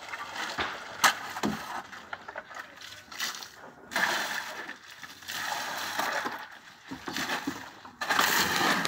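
Water poured from a bucket onto a heap of gravel, sand and cement, splashing and sloshing, for hand-mixed concrete; near the end, a shovel scraping through the wet mix.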